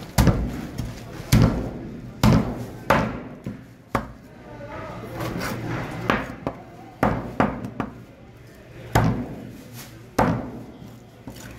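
Heavy blade chopping through a fish head on a wooden chopping block: about ten sharp, loud chops at uneven intervals, roughly a second apart.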